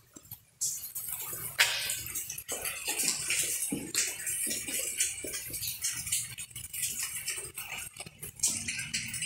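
Footsteps crunching over debris, with a steady run of irregular clinks, scrapes and crackles after a brief quiet moment at the start.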